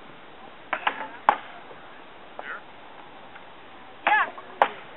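Two sharp axe blows into a wood block, about three seconds apart, with short shouts from onlookers between and just before them.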